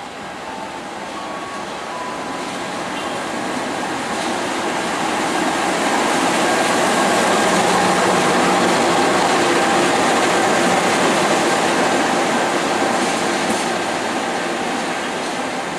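KAI CC 206 diesel-electric locomotive running light past a platform: its engine and wheels on the rails grow louder as it approaches, are loudest as it passes about halfway through, then fade as it moves away.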